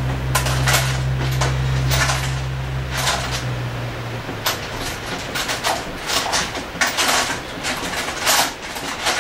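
Metal tools and parts clinking and clattering as they are handled, in a run of sharp, irregular clinks. A steady low machine hum underneath cuts off about four seconds in.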